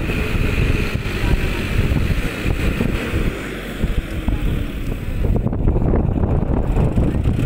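Heavy wind buffeting on the microphone over a four-wheel-drive John Deere tractor's diesel engine running as it drives through a muddy field.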